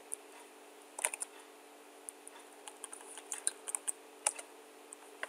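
Computer keyboard typing: a few keystrokes about a second in, then a quicker run of clicks in the second half, over a faint steady hum.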